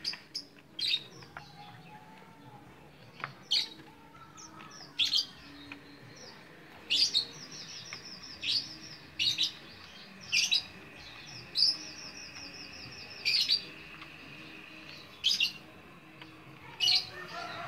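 Small caged finches chirping: sharp high single call notes every second or two, with two short runs of quick high twittering in the middle.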